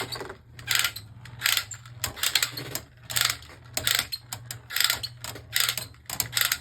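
Plastic ratcheting from a Beyblade launcher mechanism, in short repeated rasping strokes about one every three-quarters of a second, over a steady low hum.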